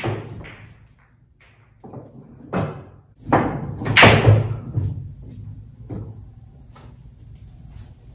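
Billiard balls rolled by hand across a pool table, knocking against the cushions and each other: a string of separate knocks and thuds, the loudest about four seconds in.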